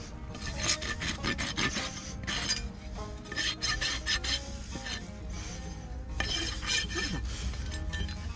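Steel hoof rasp scraping across a horse's hoof as the hoof is levelled, in runs of quick strokes with short pauses between them. Faint background music underneath.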